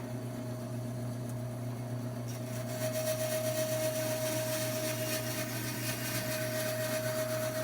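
Bandsaw running with a steady hum and whine, cutting the end off a small wooden turning; a sawing hiss joins about two seconds in.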